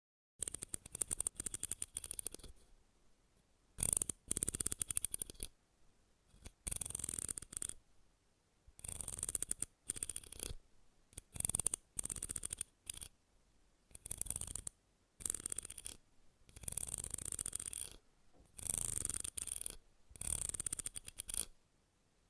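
Close-miked crisp, fast scratching, coming in bursts of about a second with short pauses between, repeated about a dozen times.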